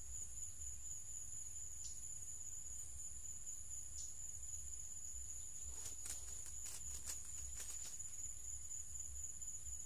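Insects calling in a steady, continuous high-pitched drone. A quick run of clicks and rustles comes about six to eight seconds in.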